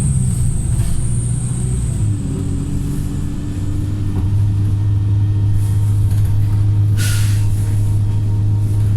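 Wright StreetLite single-deck bus engine running with a steady low drone; its note drops about two seconds in, then holds. About seven seconds in comes one short, sharp hiss of released air: the bus's 'sneeze'.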